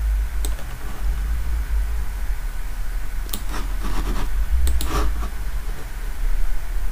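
A steady low hum with a few sharp, scattered computer mouse clicks.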